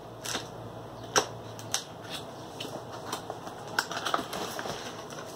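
Cardboard packaging being handled and opened: irregular clicks, taps and crinkly rustles, with a sharp snap about a second in and a cluster of clicks near the four-second mark.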